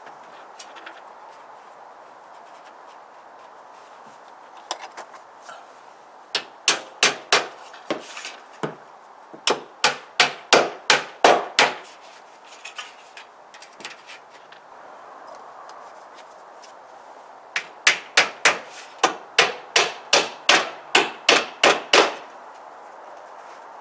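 Claw hammer driving nails through J-strip trim into the shed wall, in three runs of quick, sharp blows, about three or four a second, with pauses between the runs.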